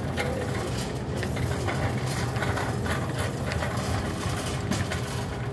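Shopping cart rolling over a hard store floor, its wheels and wire basket rattling with irregular clicks over a steady low hum.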